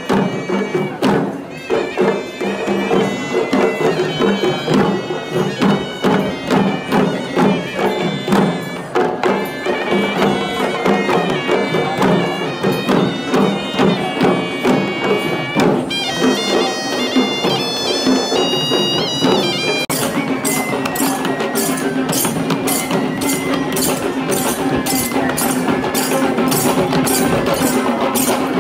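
Sri Lankan procession music played live: hand drums beating under a shrill, stepping melody from a horanewa, a reed pipe. About two-thirds of the way through, the drumming changes to a quicker, even beat.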